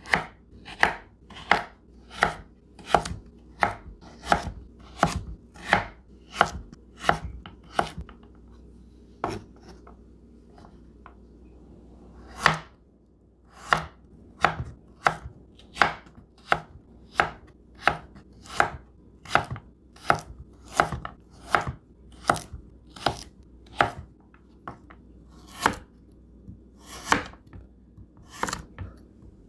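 Victorinox 8-inch chef's knife slicing through carrots onto a wooden cutting board: a steady run of single chops, about one and a half a second, each cut ending in a knock of the blade on the board. The chopping thins to a few faint strokes for about four seconds partway through, then picks up its pace again.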